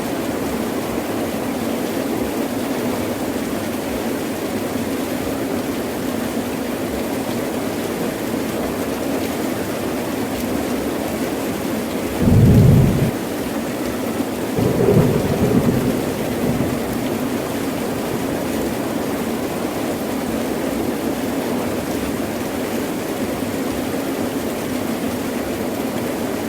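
Heavy rain falling steadily. About halfway through, a short, loud clap of thunder is followed a couple of seconds later by a rolling rumble of thunder that dies away.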